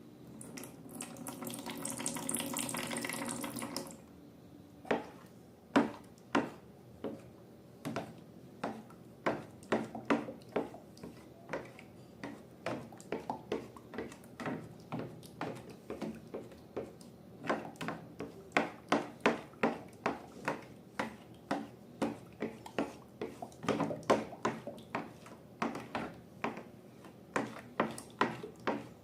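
Liquid pouring steadily for about four seconds, then slime being worked by hand: many short, sharp, wet clicks and pops, a few a second, coming thicker near the end.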